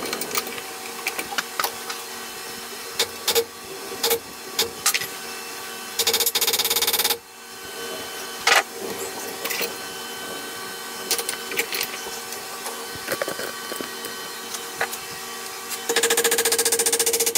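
A steel pick scraping and clicking against rusty cast iron as it digs out a slot in an old vise jaw, with two longer rasping scrapes, one about six seconds in and one near the end.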